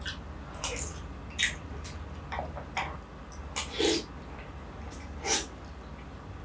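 Close-miked slurping and wet mouth sounds of someone eating shwe yin aye, a Burmese coconut-milk dessert with bread and jelly strands, from a spoon. There is a string of short slurps, the loudest about three and a half to four seconds in and again near five seconds.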